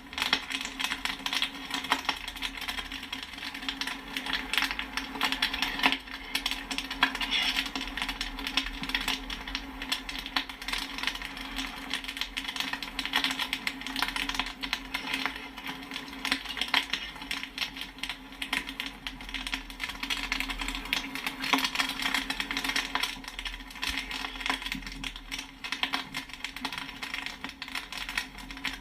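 Popcorn kernels popping in quick succession, a dense, irregular stream of sharp pops and pings over a steady low hum.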